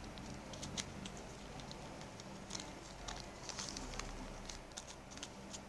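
Faint, scattered ticks and rustles of a paper sheet being folded and creased by hand, over a low steady hum.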